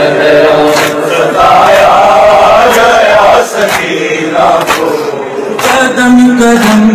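A man chanting an Urdu noha, a Shia lament, into a microphone, with sharp chest-beating (matam) thumps keeping time about once a second.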